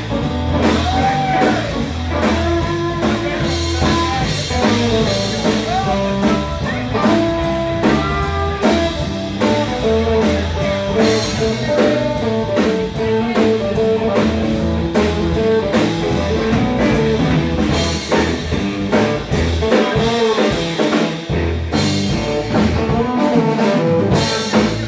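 A live band playing: electric guitar lines over a steady drum beat, heard from among the crowd in a bar room.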